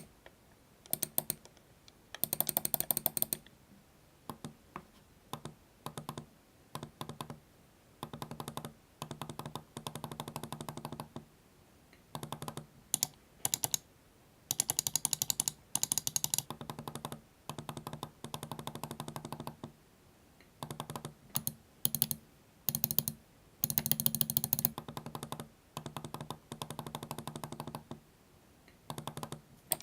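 Computer mouse buttons and scroll wheels clicking up close, in short runs of rapid clicks and a few single clicks with quiet gaps between. The mice are a Speedlink Calado silent-click mouse and three ordinary mice, heard one after another for comparison.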